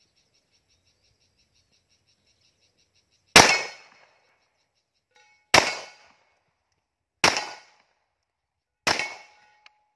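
Four pistol shots from a .45-calibre 1911, about two seconds apart, each followed by a short echo tail. A fast, even high chirping runs until the first shot.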